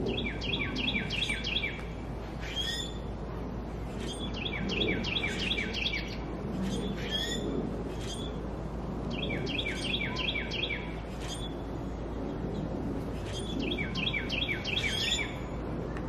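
A songbird singing a phrase of about six quick down-slurred whistled notes, repeated four times about every four to five seconds, with scattered short chirps from other birds in between.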